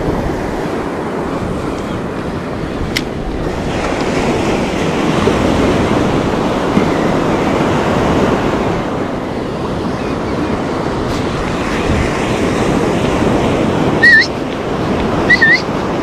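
Ocean surf breaking and washing up the sand, a steady rush with wind buffeting the microphone. Near the end, two short, loud, high rising chirps cut through it.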